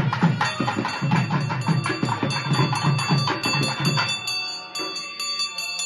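Drums beating a fast, dense rhythm with bells ringing over them. The drumming stops about four seconds in, and the bells ring on alone.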